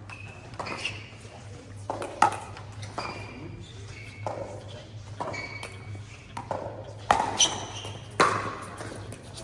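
A doubles racket-sport rally: a ball is struck sharply several times, with the loudest hit about two seconds in. A steady low hum runs underneath.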